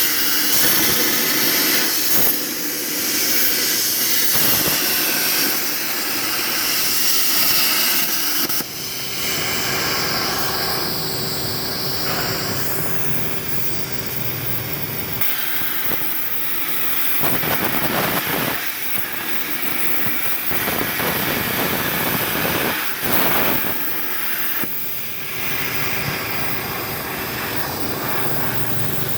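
CNC plasma torch cutting 4 mm steel plate: a loud, steady hiss of the plasma arc and its air jet, changing in tone a few times as the cut goes on.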